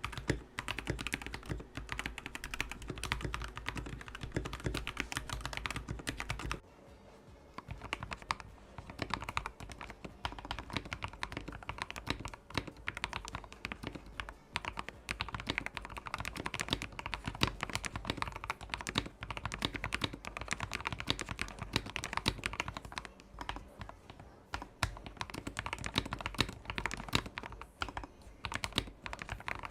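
Mechanical keyboard with freshly lubed switches being typed on steadily, a dense run of key clacks. A low hum sits under the typing for the first six or so seconds, then drops away.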